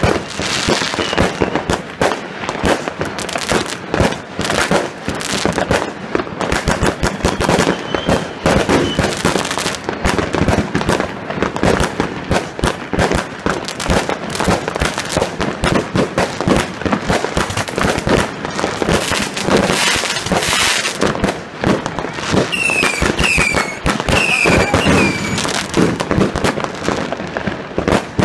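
Aerial fireworks going off in rapid succession: a dense, unbroken string of bangs and crackling bursts, many a second.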